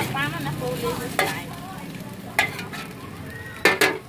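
Metal spatula scraping and knocking on a flat round metal griddle, a few sharp strokes with the loudest pair near the end, over a light sizzle of frying noodles.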